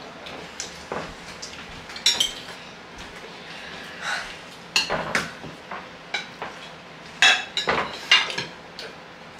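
Metal forks clinking and scraping against ceramic plates during a meal, in irregular sharp clicks with a few louder clinks.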